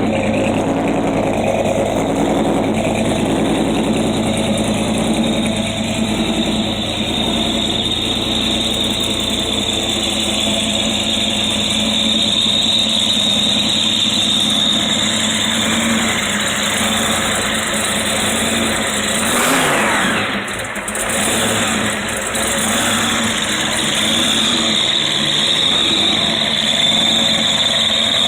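Gasser hot rod's engine running steadily, with a high steady whine over it. About twenty seconds in there is a brief sweep in pitch.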